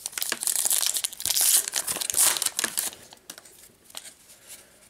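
A trading-card pack wrapper being torn open and crinkled by hand, a loud crackling tear that lasts about three seconds. It is followed by faint rustles and ticks as the stack of cards is slid out.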